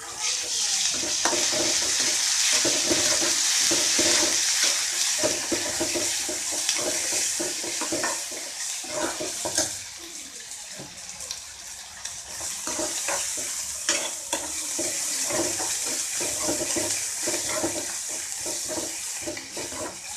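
Onions, curry leaves, green chillies and ginger-garlic paste sizzling in hot oil in a stainless steel kadai, with a steel ladle repeatedly scraping and knocking against the pan as they are stirred. The paste is being fried until its raw smell is gone. The sizzle eases a little about halfway through.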